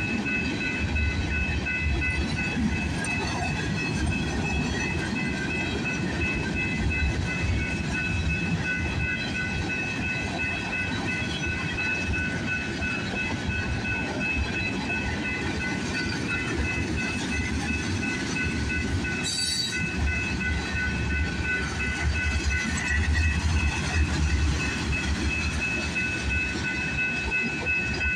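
CPKC 133's mixed-freight cars rolling past in a steady low rumble, with several steady high-pitched tones running over it and one short click a little past the middle.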